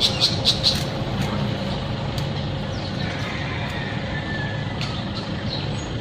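Steady outdoor street-traffic noise, with a few faint bird chirps. A short run of sharp ticks comes in the first second.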